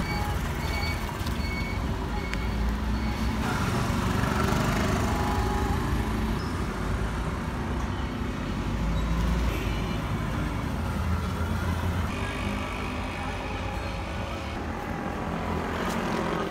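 Street traffic noise: a steady low rumble of passing vehicles, with a few short high beeps in the first two seconds.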